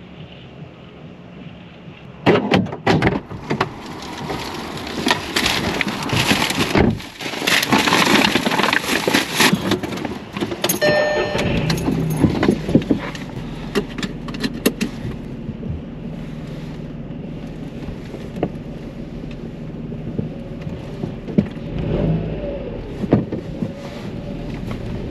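Clattering and rustling as someone gets into the vehicle, with keys jangling and things being handled. About halfway through a short electronic beep sounds, then the engine starts and runs steadily, revving as the vehicle moves off near the end.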